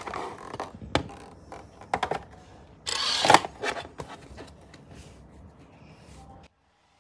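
Clear plastic toy packaging rustling and crinkling as a plastic Velociraptor action figure is handled: a few sharp clicks in the first two seconds, a loud rustle about three seconds in, then quieter handling sounds that cut off abruptly near the end.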